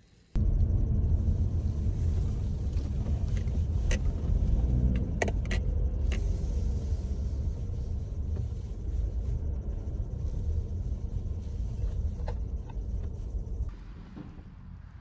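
Car on the move: a steady low rumble of road and engine noise, with a few sharp clicks about four to six seconds in.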